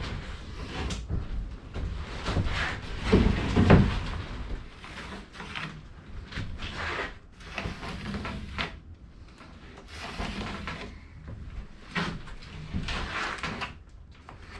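Irregular knocks, scrapes and clatter of wooden boards and tools being handled, loudest in a cluster of knocks about three to four seconds in.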